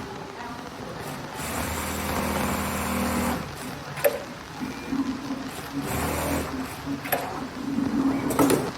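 Automatic kangaroo-pocket setting sewing machine running in bursts of stitching, with sharp clicks from its mechanism between the runs.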